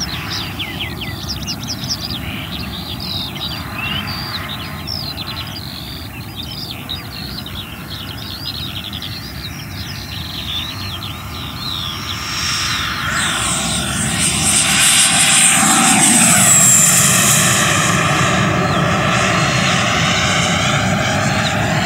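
Large electric ducted-fan RC jet, a 100 mm WeMoTec Midi Evo fan, flying past. Its rushing whine is steady and moderate at first, swells from about halfway through to a loud peak with a high whine falling in pitch as it passes, and stays loud to the end.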